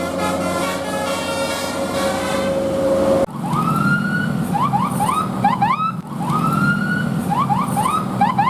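Multi-tone bus 'telolet' horn playing a melody of changing notes over one held tone. It cuts off abruptly about three seconds in. An electronic siren pattern follows, a long rising whoop and then several quick rising chirps, and it goes through this twice.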